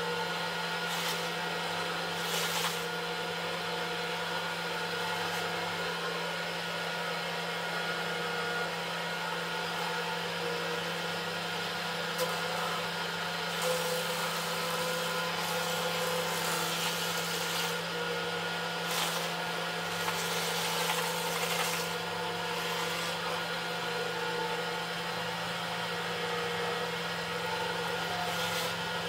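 Electric woodworking machine running steadily with a constant hum while a long wooden plank is fed through it on edge. The cutter bites into the wood in several bursts of louder noise, the heaviest in the middle part.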